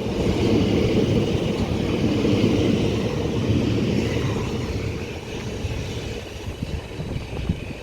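Class 377 Electrostar electric train running along the platform, a steady rumble that is loudest for the first few seconds and then slowly fades.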